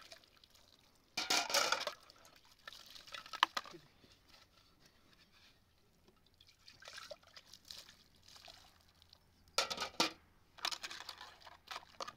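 Liquid pouring in four short bursts: the loudest about a second in, one around three and a half seconds, and two close together near the end.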